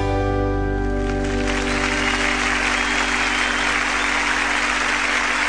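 The band's final chord holds and rings out, and from about a second and a half in audience applause with a few whistles rises over it and goes on.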